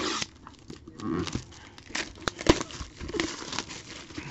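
Plastic wrapping crinkling and tearing as a box of trading cards is unwrapped and opened, in irregular rustles with a few sharp clicks of handling.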